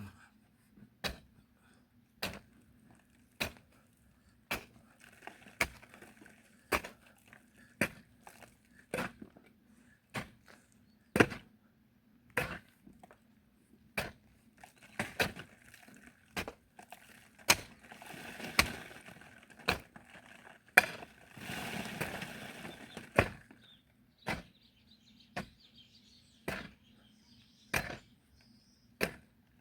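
A digging tool striking hard murram soil in steady blows, about one a second. Some seconds of continuous scraping noise sit among the blows about two-thirds of the way through.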